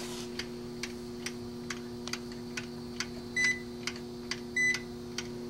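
Schumacher SE-2158 battery charger's timer ticking a little over twice a second over a steady hum from the energized charger. Two short, high electronic beeps from the clamp meter come a little past the middle and near the end.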